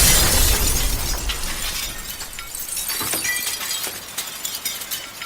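A loud crash, like something breaking, dying away slowly into hiss and scattered small clicks, with the song's music faint beneath it.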